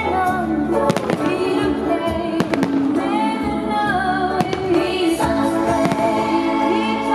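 Fireworks bursting overhead: several sharp bangs spaced irregularly over a bed of loud music.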